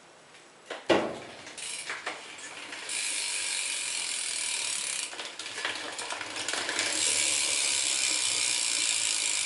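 G Sport rear hub of a BMX bike clicking as the wheel freewheels, its pawls making a fast, continuous ratchet buzz. It starts about a second and a half in, after a single knock, dips briefly around five seconds, then gets louder from about seven seconds.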